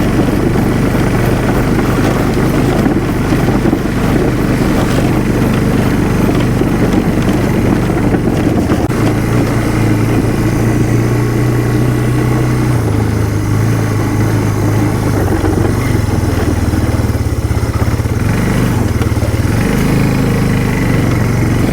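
A small vehicle's engine running steadily as it is driven across a rough field. Its pitch shifts up and down from about halfway through as the speed changes.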